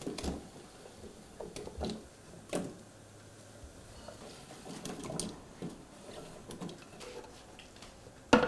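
Chopped vegetables being pushed off a wooden cutting board and dropping into a pot of boiling broth: scattered soft plops and knocks at irregular moments, with a louder knock near the end.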